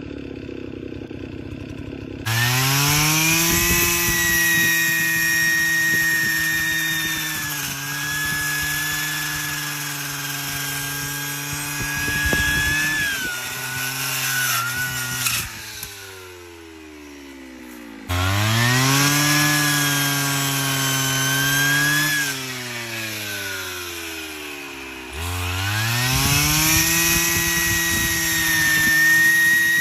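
Brush cutter with a saw attachment: its small engine revs up to high speed about two seconds in, holds, sags and drops back toward idle, then revs up twice more. The pitch dips and wavers under load as it cuts through branches.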